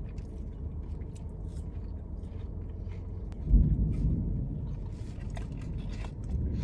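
Close-up chewing and biting of food, with small crunchy clicks, over a steady low rumble. A sudden low thump comes about three and a half seconds in.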